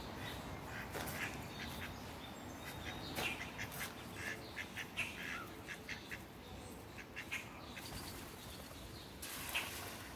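Ducks quacking in a run of short, scattered calls, with a brief rushing noise near the end.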